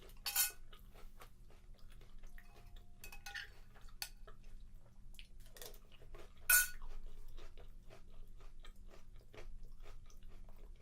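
A metal spoon clinking against a bowl, loudest twice (just after the start and about six and a half seconds in), between soft crunchy chewing and small spoon scrapes while eating cereal.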